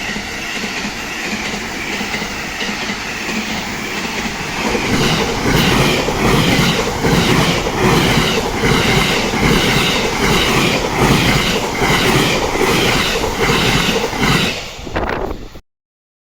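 Train passing close by on the JR Kyoto Line, its wheels clattering over the rail joints in a steady rhythm. It grows louder about five seconds in and cuts off suddenly near the end.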